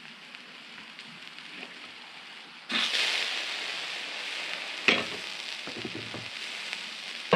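Vegetables and sausage sizzling on a hot steel flat-top griddle. About three seconds in the sizzle jumps suddenly louder as cherry tomatoes are put onto the griddle, then slowly eases. There is a sharp knock about five seconds in.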